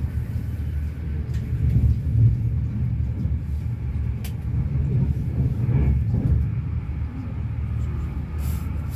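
Intercity passenger train running: a steady low rumble, with a few faint clicks.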